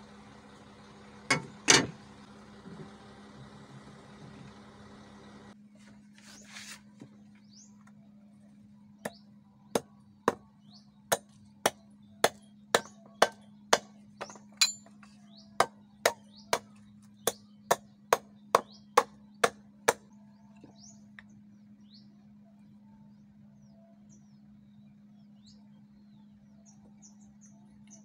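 A run of about twenty sharp knocks, roughly two a second, as a new wooden handle is knocked onto a bolo's tang. A steady low hum runs underneath, and two loud thumps come in the first two seconds.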